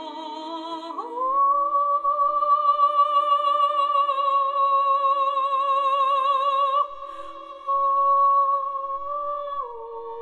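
Background music: a long held note with vibrato over sustained accompanying tones, sliding up about a second in and stepping down near the end.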